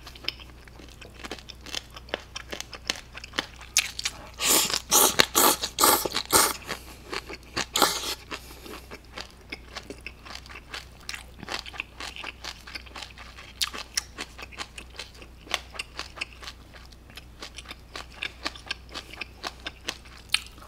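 Close-miked eating of spicy mixed cold noodles (bibim naengmyeon): wet chewing and crunching with many small mouth clicks, louder bursts of eating noise about four to six seconds in and again near eight seconds.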